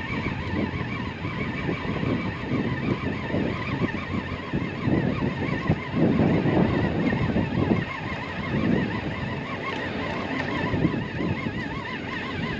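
Fishing reel being wound in steadily, its gears giving a wavering whine that rises and falls a few times a second, as a rig fouled with weed is retrieved. Gusty low wind rumble on the microphone underneath.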